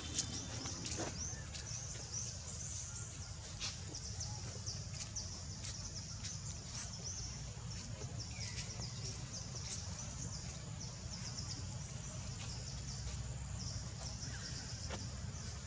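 Forest ambience: a steady high-pitched chorus of insects and chirping birds over a low rumble, with a few short ticks scattered through it.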